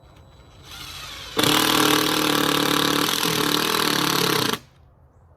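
Power drill driving a screw into wood: a soft, slow start about a second in, then about three seconds of steady full-speed motor whine that stops abruptly.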